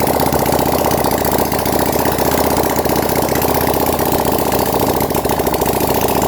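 Handmade 300cc V-twin motorcycle engine, built from a Honda Tiger engine, idling steadily at an even speed.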